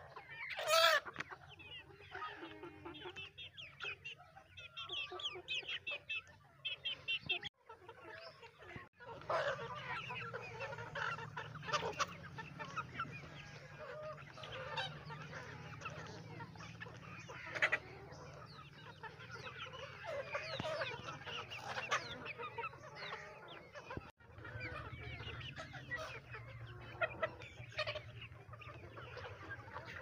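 Flock of free-range desi chickens clucking and calling over one another, with a loud call about a second in. The sound cuts out briefly a few times.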